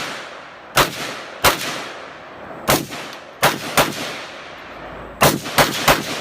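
Semi-automatic rifle fired shot by shot, eight sharp reports at an uneven pace with a pause of about a second between some, the last three in quick succession, each followed by a short echoing tail.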